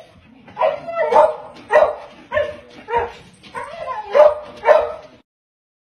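Small dog barking and yipping excitedly in short, quick calls, about two a second, stopping about five seconds in.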